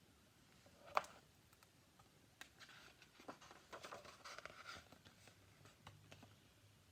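Faint rustling and light ticks of a picture book's paper being handled and its pages turned, with one sharper click about a second in.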